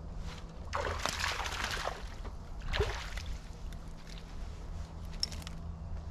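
Water sloshing against a bass boat's hull in two rushes, about a second in and near three seconds, over the steady low hum of the bow-mounted trolling motor. A few light clicks come near the end.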